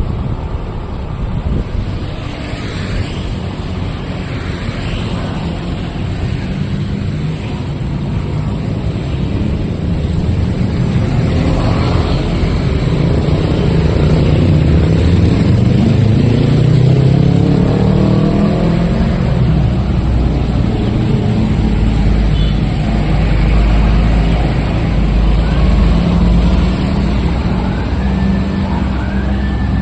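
Road traffic: the low running of vehicle engines, with one engine rising in pitch as it speeds up about halfway through. Near the end a siren starts to wail.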